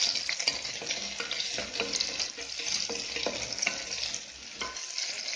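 Small onions, green chilli and curry leaves sizzling in hot oil in a pressure cooker, stirred with a wooden spatula that scrapes and taps against the pot: a steady frying hiss broken by short scrapes and clicks.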